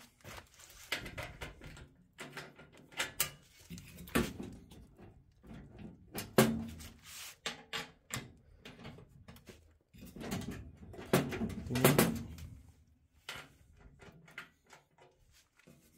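A key turning in the locks of a laser cutter's sheet-metal tube-compartment cover, with irregular metallic clicks, rattles and knocks as the panel is unlocked and handled. The loudest knocks come about halfway through and again near the three-quarter mark.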